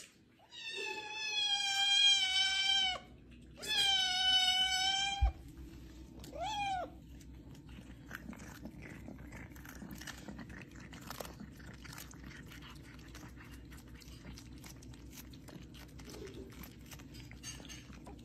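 A cat gives two long, drawn-out meows of about two seconds each, then a short rising-and-falling meow. After that comes faint, scattered crunching and clicking from a kitten chewing cucumber slices.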